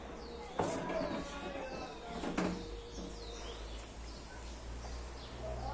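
Two sharp knocks, about half a second and two and a half seconds in, as the plastic front parts of a front-loading washing machine are handled during repair, with birds chirping throughout.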